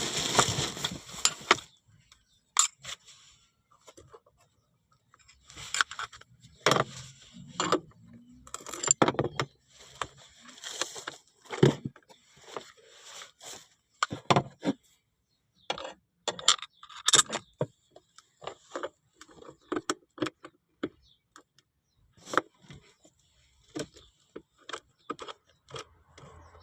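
Irregular metallic clicks, clinks and scrapes of hand tools and a bolt as the seat belt mechanism is fitted and bolted in, with short quiet gaps between.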